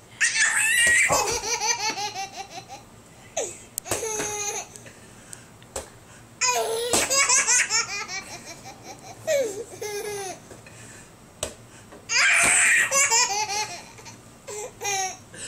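A baby laughing hard in three long bouts of quick, repeated high-pitched laughs, with shorter bursts in between.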